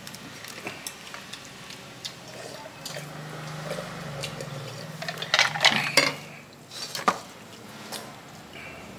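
Chopsticks, foam takeaway boxes and plastic bags being handled: scattered clicks and clatter, busiest about five to six seconds in, with another sharp click about seven seconds in.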